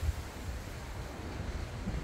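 Storm wind buffeting the microphone: an uneven low rumble over a steady hiss.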